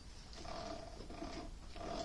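Old Winfield lathe's chuck and spindle being turned by hand while the stock is centred, a repeating scraping rasp about twice a second.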